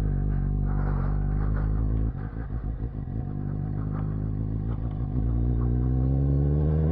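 Suzuki GSX-S750's inline-four engine running at low revs as the motorcycle rolls slowly. About two seconds in the note drops and turns uneven, then from about five seconds the pitch rises steadily as the bike picks up speed.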